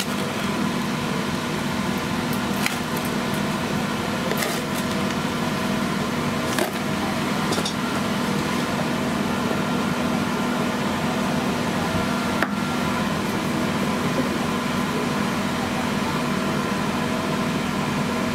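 Steady mechanical hum of a machine, with a few faint clicks scattered through it.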